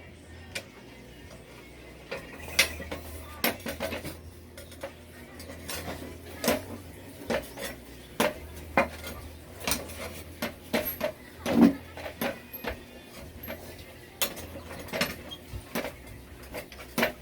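Metal hand tools and parts clinking and knocking irregularly, with the loudest knock about two-thirds of the way through, over a steady low hum.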